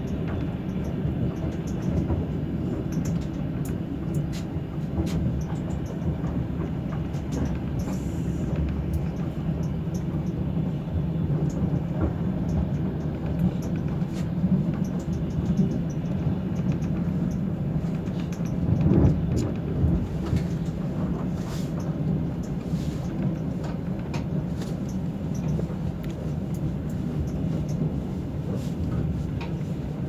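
Passenger train running, heard from inside the carriage: a low, steady running noise of wheels on the track with faint scattered clicks and rattles, swelling briefly louder about two-thirds of the way through.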